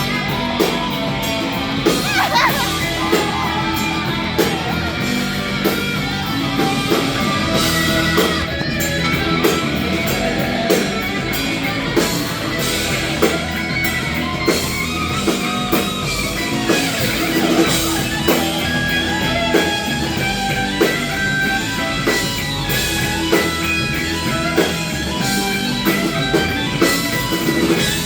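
Rock band music: electric guitar over a drum kit keeping a steady beat.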